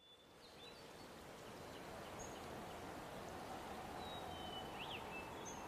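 Faint outdoor ambience fading in: a steady hiss with a few short, high bird chirps scattered through it, one a quick up-and-down chirp near the end.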